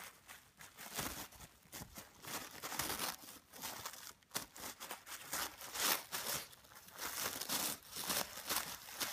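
Tissue paper crinkling and rustling in irregular crackly bursts as a small dog paws at it and mouths it.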